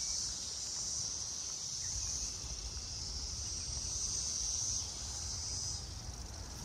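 A steady, high-pitched chorus of insects trilling, swelling and easing every second or two, over a faint low rumble.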